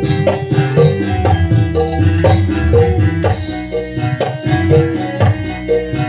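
Live music: a Yamaha electronic keyboard playing a melody over a quick, steady rhythm of hand-played kendang drums, amplified through a sound system.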